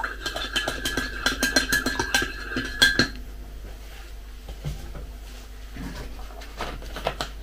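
A teaspoon stirring in a ceramic mug, clinking quickly against its sides with a ringing tone, stopping about three seconds in. After that only a few faint knocks and rustles.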